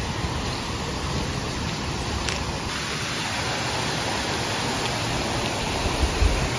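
Steady rush of a mountain creek's flowing water, an even hiss, with a few low bumps near the end.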